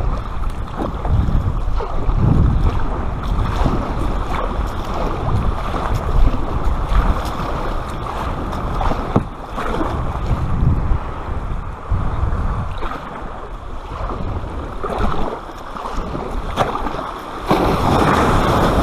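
Paddle strokes splashing and surf washing around an inflatable kayak as it is paddled in through breaking waves, with wind buffeting the microphone. The wash of the breaking surf swells louder shortly before the end.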